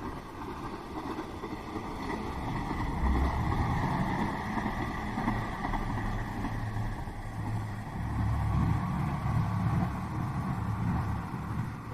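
Rain-swollen river rushing, a steady noise with a low rumble that swells about three seconds in.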